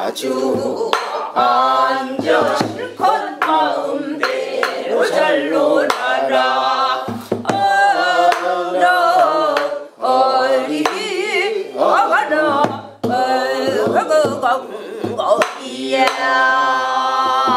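Korean folk song (minyo) sung in the throaty pansori-style voice, with wide wavering vibrato on held notes. Sharp percussive strokes keep time under the singing.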